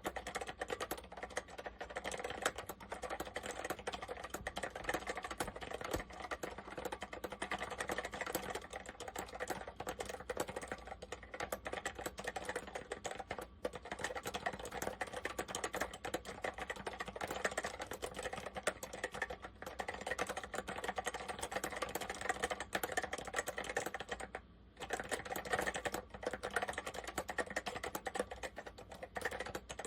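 Apple M0110A Macintosh Plus keyboard with Mitsumi Standard mechanical switches being typed on steadily: a fast, continuous stream of key clicks, with a brief pause about 24 seconds in.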